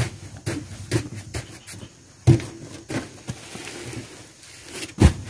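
Heavy sacks of chicken manure being handled and hoisted, with scattered scuffs and knocks and two loud thuds, one about two seconds in and one near the end.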